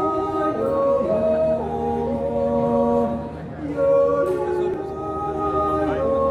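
Two male voices singing a cappella in harmony, a Swiss yodel duet, holding long, slowly changing notes. There is a short breath between phrases a little past halfway.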